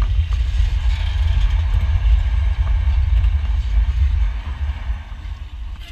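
Steam locomotive W22 and its tender rolling slowly past at close range: a steady low rumble with a light hiss, growing quieter over the last second and a half.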